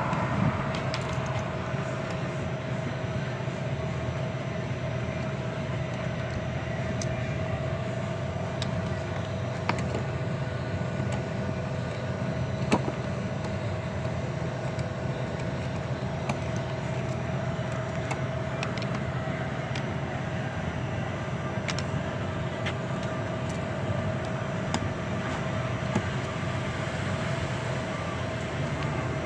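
A steady mechanical hum with one constant tone, and a few light clicks and taps scattered through it from small metal carburetor parts and tools being handled during the teardown.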